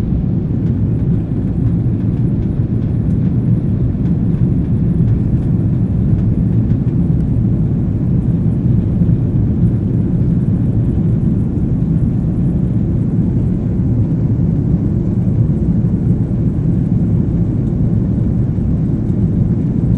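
Steady low rumble heard from inside a moving vehicle, even and unchanging throughout.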